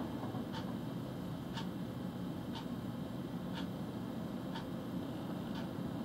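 Steady low rumble of a car engine, with a sharp tick about once a second.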